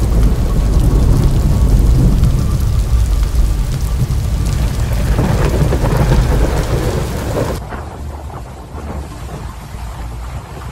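Hurricane storm noise: heavy rain and wind over a deep, continuous rumble. About three-quarters of the way through it cuts to a quieter rushing noise of floodwater.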